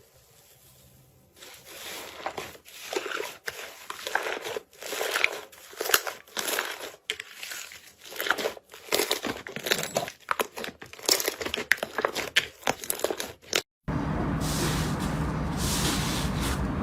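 Slime being pressed and squeezed, giving quick irregular crackling and popping that starts about a second and a half in. Near the end it breaks off abruptly and gives way to a steady hiss and low hum, with more crackling over it.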